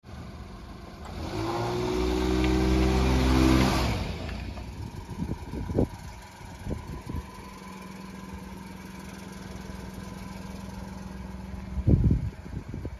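A 1994 Daihatsu Hijet kei truck's small three-cylinder engine is loud for a few seconds as the truck drives in under power, its pitch rising slightly, then idles steadily. A few light knocks come in the middle, and a sharp thump near the end is the loudest sound.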